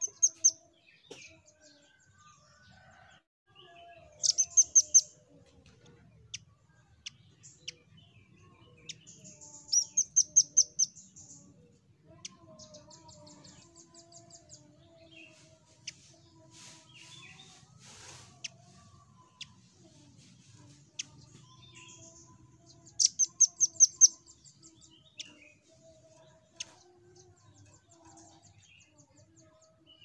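Velvet-fronted nuthatch calling: short bursts of rapid, high-pitched repeated notes, loudest near the start and about 4, 10 and 23 seconds in, with fainter trills between them.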